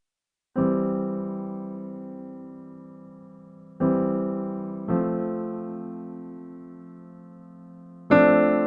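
Background music of slow keyboard chords, each struck and left to ring out and fade. Four chords follow a brief moment of silence at the start.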